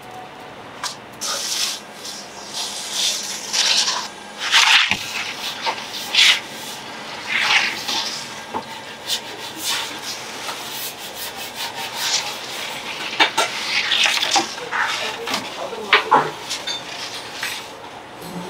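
A wooden baker's peel and baked flatbread scraping and sliding over wood, an irregular series of short rubbing strokes.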